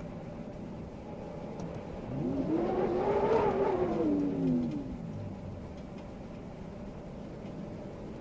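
Steady wind noise. About two seconds in, a pitched sound swells for roughly three seconds, rising and then falling in pitch before fading back into the wind.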